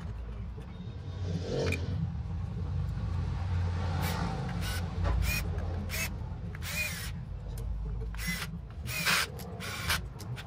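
Hand work with tools over a steady low hum. From about four seconds in come a run of sharp clicks and knocks, some with a short metallic ring.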